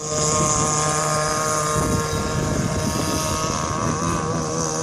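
26cc two-stroke petrol engine of a radio-controlled boat running steadily, its pitch wavering slightly about four seconds in.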